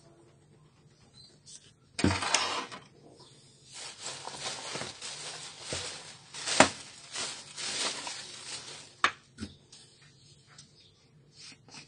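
Handling of a plastic toner refill bottle on a wooden tabletop: a sharp knock about two seconds in, then several seconds of rustling and scraping with sharp plastic clicks, and a couple more clicks a little later.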